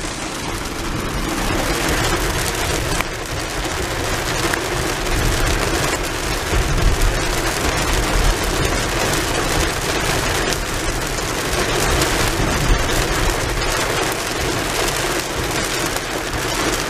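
Rain falling on a car's roof and windshield, heard from inside the moving car as a steady, dense patter of drops.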